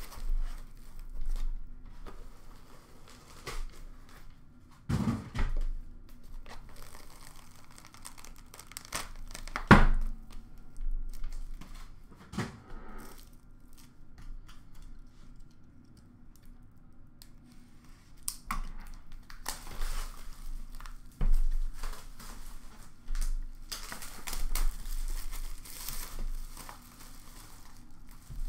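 Plastic shrink-wrap being torn and crinkled off a cardboard hockey card box, in rustling stretches that come mostly in the second half. Scattered thumps and knocks as the box and its foam packing are handled, the loudest about ten seconds in.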